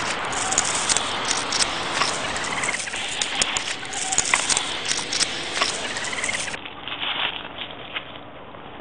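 Dry leaf litter and twigs rustling and crackling close to the microphone, with many sharp snaps, easing off about two-thirds of the way through. Two short rising chirps come through the rustling.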